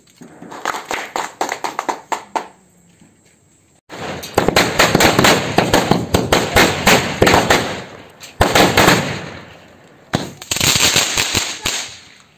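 Strings of firecrackers going off in rapid crackling runs of bangs. A short run comes first, then a pause of about a second and a half, then a long dense run. Two more bursts follow near the end.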